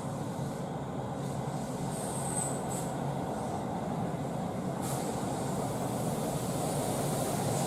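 Electric train running on the rails: a steady rumble of wheels and motors that grows slightly louder toward the end.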